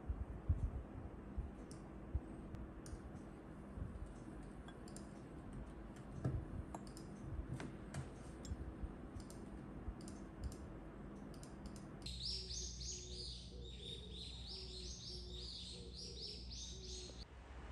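Scattered light clicks and taps. About twelve seconds in, the sound changes suddenly to a run of rapid, high, bird-like chirps lasting around five seconds.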